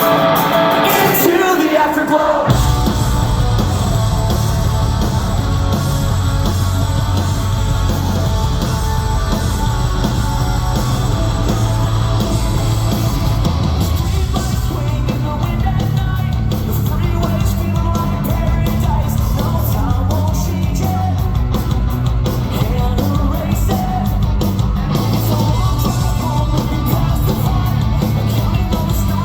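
Post-hardcore band playing live at full volume: a guitar line gives way, about two seconds in, to the full band with heavy drums and bass, with vocals over it.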